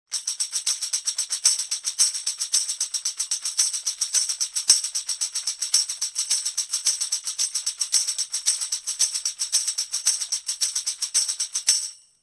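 Tambourine jingles shaken in a fast, even rhythm of roughly eight strokes a second, bright and metallic, stopping abruptly just before the end.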